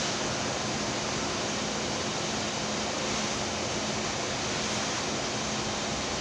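Electric fan running steadily: a constant rush of air with a low, even hum.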